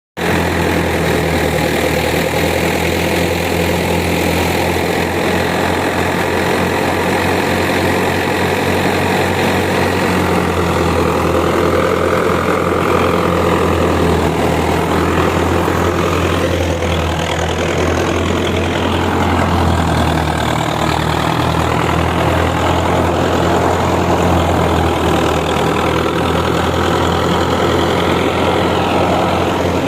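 Belarus 510 tractor's diesel engine running steadily at a constant speed, with a strong low hum.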